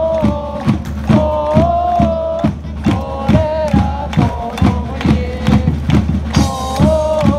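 Football supporters' chant for a single player: a crowd sings a repeating melody in unison over a steady drum beat.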